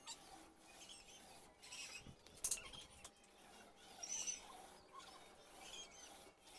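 Small paint roller rolling wet white primer filler over the plywood of a speaker box: faint, repeated sticky crackling strokes with small squeaks, about one a second. A sharp click about two and a half seconds in.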